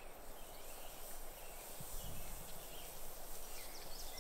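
Steak sizzling on the grate of a hot charcoal kettle grill, a steady hiss, with a few faint bird chirps.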